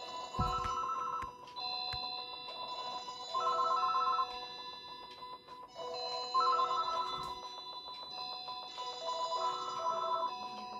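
Alarms on several Panasonic cordless phone handsets going off together: overlapping electronic beeping melodies, each repeating every few seconds. There is a thump about half a second in.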